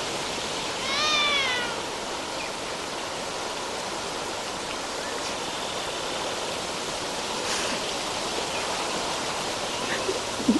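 A newborn baby's cry: one high wail rising and falling about a second in, over a steady rushing hiss.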